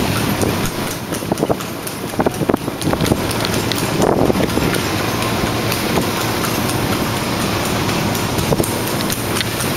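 Steady rushing noise of an open vehicle in motion, with scattered rattles and knocks throughout.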